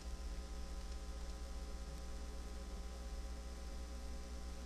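Steady low electrical mains hum with faint hiss, unchanging throughout; no other sound.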